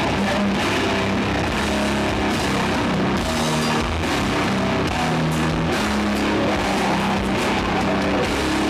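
Doom metal band playing live: slow, heavy distorted guitar chords, each held for a second or two, over drums and cymbals.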